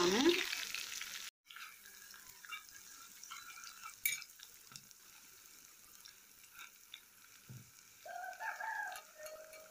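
Crushed garlic sizzling in hot oil for a mustard-seed tempering in a small steel kadai, stirred with a spatula; loud for about the first second, then it drops off abruptly and goes on faintly, with a single click about four seconds in. Near the end a faint drawn-out call sounds in the background for about a second and a half.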